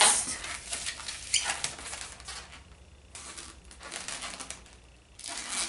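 Latex twisting balloons (a gold chrome 260 against red 260s) squeaking and rubbing as they are twisted into a pinch twist, in scratchy bursts that thin out in the middle and pick up again near the end.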